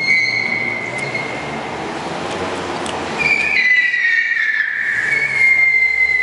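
Car tyres squealing as a sedan drifts on a smooth painted concrete garage floor: a short squeal at the start, then a louder, longer squeal from about three seconds in that slides slightly down in pitch.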